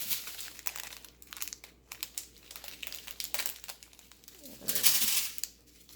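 Plastic packaging crinkling in the hands as a small packet of diamond-painting drills is worked open: scattered irregular crackles, with a louder burst of crinkling near the end.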